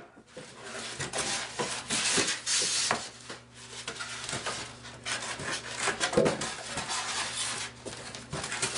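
Packaging being handled: plastic wrap and foam rustling and rubbing, with scattered light knocks and clicks, coming and going in uneven bursts.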